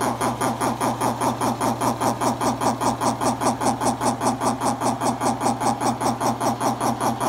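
A 1930s Curtis belt-driven two-cylinder air compressor running and pumping air, chugging evenly at about five to six beats a second over a steady hum.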